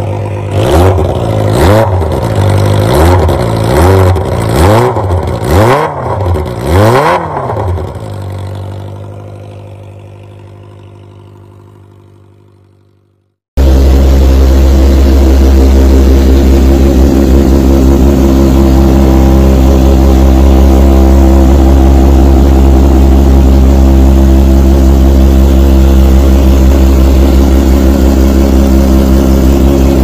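Kawasaki Ninja ZX-25R inline-four engine through a Toce racing exhaust, blipped about seven times in quick succession, each rev climbing and dropping back, then dying away. About halfway through, a ZX-25R on a racing exhaust comes in loud and steady at idle.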